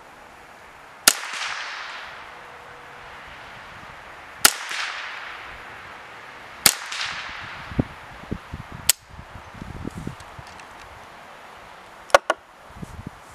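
Ruger 10/22 .22 rifle firing four single shots two to three seconds apart, each with an echo trailing off for about a second. Near the end come a quick pair of sharp clicks, with low handling knocks between them and the last shot.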